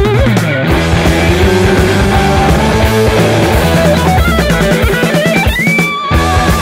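Blues-rock recording: an electric lead guitar playing bent, wavering notes over bass and a drum kit. The band drops out briefly about six seconds in.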